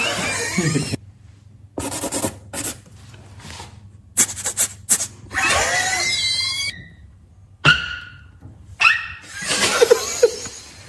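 Beatboxers' mouth sounds: a string of separate short noises with gaps between them, namely hissy bursts, sharp clicks, and squeaky gliding whistle-like sweeps.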